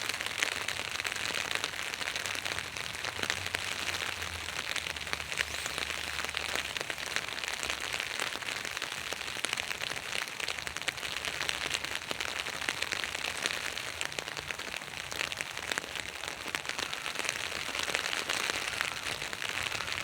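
Spring rain drumming on an umbrella: a steady, dense run of many small drop hits with no let-up.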